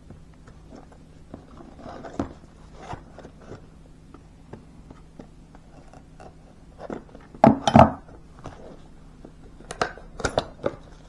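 Unboxing handling noises: scattered clicks and rustles of a knife's box and case being handled and opened, with a louder clatter of knocks about seven and a half seconds in and another few near the end.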